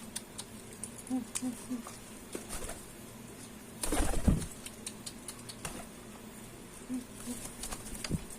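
Domestic pigeon cooing in short low pulses during the male's courtship display, three coos about a second in and three more near the end. A brief burst of wing flapping about four seconds in. Scattered light clicks throughout.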